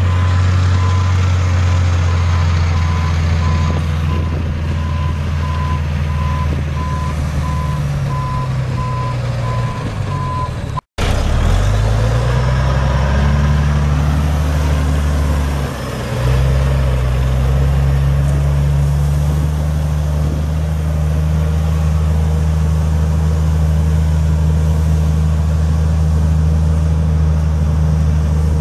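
Volvo D12 inline-six diesel of a heavy water truck running under load, with its backup alarm beeping steadily for the first ten seconds or so while the truck reverses. After an abrupt break, the engine note climbs, drops out briefly, and settles into a steady drone as the truck drives.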